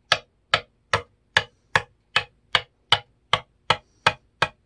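A metal tool tapping one fret after another along an electric guitar neck: an even run of sharp metallic ticks, about two and a half a second, all much alike. This is a fret-seating test: each fret should give the same solid tap, and a flat, dead one would mark a loose fret.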